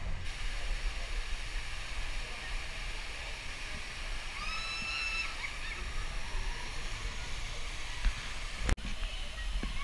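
Steady rush and splash of water from waterslide run-outs and splash pools, with a brief high-pitched call about four and a half seconds in.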